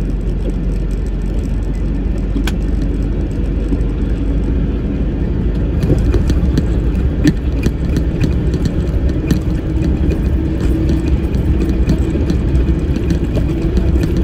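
Steady engine and road drone heard from inside a truck cab while it drives along an expressway, getting a little louder about six seconds in, with scattered faint clicks.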